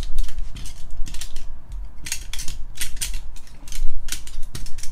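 Clear plastic card display stands clicking and clattering against each other as they are picked up and stacked by hand. It is an irregular run of sharp plastic clicks, with a louder cluster about four seconds in.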